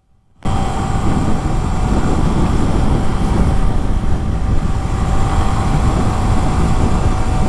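A Yamaha YZF R15's 155 cc single-cylinder engine running steadily while the bike is ridden, mixed with a steady rush of riding noise. The sound starts abruptly about half a second in.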